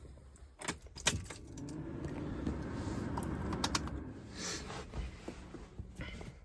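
A bunch of keys jangling, with several sharp clicks, over a low hum that swells in the middle and fades again, as the van's ignition is switched on to power the newly fitted stereo for a first test.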